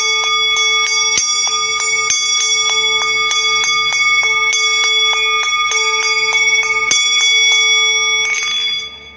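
A metal bell ringing steadily with several fixed overtones, re-struck about two to three times a second, as by a clapper. Near the end a short scrape is heard and the ringing is damped to a faint hum.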